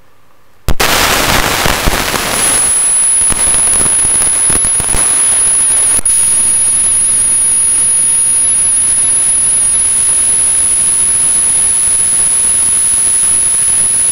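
Loud static hiss from the sound system, a glitch in place of the clip's soundtrack. It starts suddenly about a second in, crackly at first, then runs on evenly, and a thin high-pitched whine joins it a couple of seconds in.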